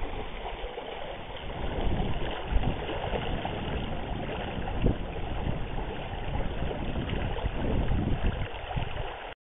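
Shallow river water rushing steadily over a stony riffle, with irregular low rumbles of wind buffeting the microphone.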